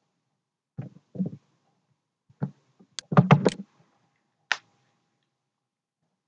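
Short, separate clicks and knocks from a computer mouse and keyboard, as a program is saved and launched. A quick run of about four louder knocks comes about three seconds in, and a last click follows a second later.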